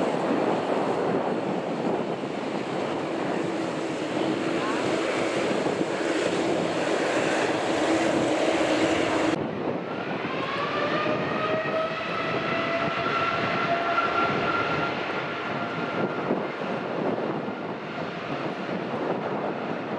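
Jet airliner engines: a loud, steady rush with a low hum. About halfway through it cuts abruptly to another stretch of jet noise, where a whine rises in pitch and then holds steady.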